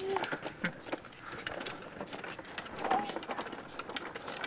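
Plastic wheels of a toddler's toy quad clicking and rattling over a concrete sidewalk, with a couple of short high squeals, one right at the start and one about three seconds in.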